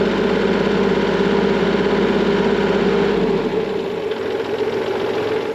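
Kubota tractor's diesel engine running steadily. Its deep low rumble fades out a little past halfway, and the engine sound stops abruptly at the very end.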